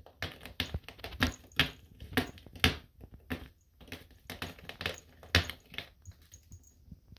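A cat clawing a flat corrugated-cardboard scratcher in rough, rasping strokes, about three a second, stopping about six seconds in.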